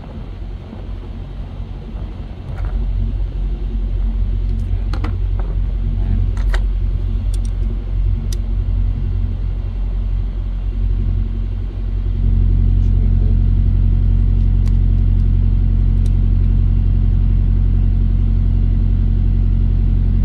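An engine idling steadily, a low hum that gets louder about twelve seconds in. Scattered light metallic clicks of hand tools on the air governor can be heard over it.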